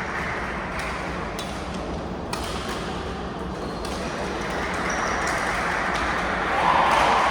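Court sounds of an indoor ball game: a few ball or foot thuds and brief shoe squeaks over steady spectator chatter, which swells louder near the end.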